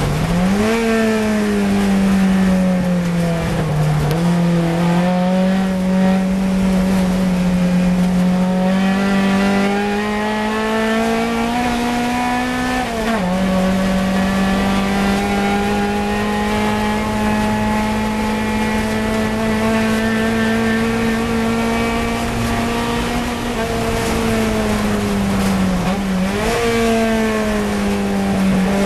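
Fiat 124 Coupe race car's four-cylinder engine running hard at high revs, heard from inside the cockpit. The engine note holds mostly steady, dips briefly a few times and then climbs again.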